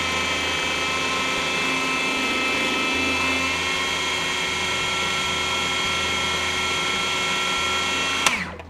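Electric food processor motor running at a steady high whine while it purées a green sauce. Near the end it is switched off with a click and the motor spins down.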